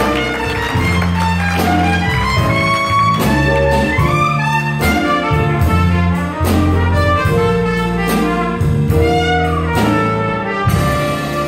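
Instrumental music from a band: a melody line changing notes over a held bass line, with regular drum hits.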